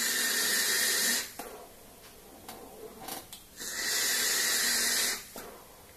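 Airy hissing of breath and air drawn through a Wismec Reux RTA vape tank and blown out as vapour: two long hisses, each about a second and a half, the second starting about three and a half seconds in.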